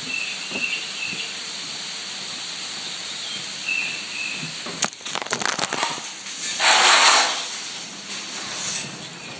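Steady high hiss of insects with a few short bird chirps. About halfway through it gives way suddenly to crackling clicks and then a loud rushing burst of noise lasting under a second.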